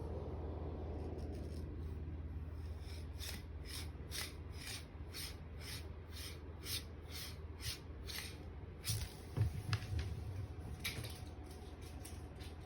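Repeated scratching or rubbing strokes, a little over two a second for several seconds, then a few louder knocks and thumps near the end, over a steady low hum.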